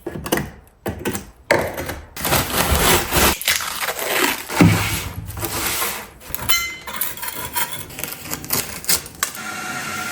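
Tools and tile pieces clattering and knocking irregularly as they are handled on a tiling job; near the end a steady hum takes over.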